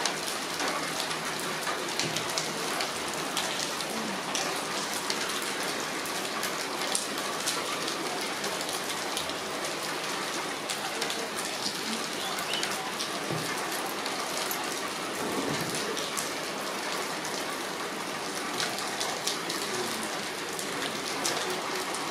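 Heavy rain falling steadily: a dense, even hiss peppered with frequent sharp taps of drops striking nearby surfaces.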